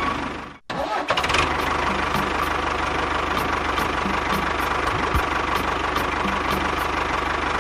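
Small engine of a DIY mini tractor bulldozer running steadily with a fast, even pulse. It breaks off for a moment just over half a second in, then runs on.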